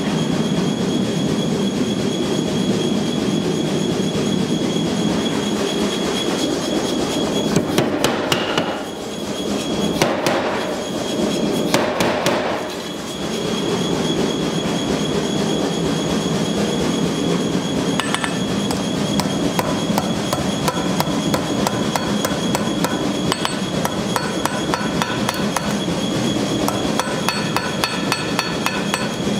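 Power hammer running with a fast, steady clatter of blows as a hot steel knife blank is forged under it, with a few louder strikes about a third of the way in.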